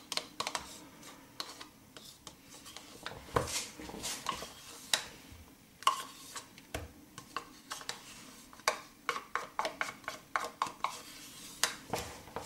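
Spoon scraping and tapping inside a pot of sour cream, scooping out the last of it into a plastic tub: irregular clicks and short scrapes, with a quicker run of taps about two-thirds of the way through.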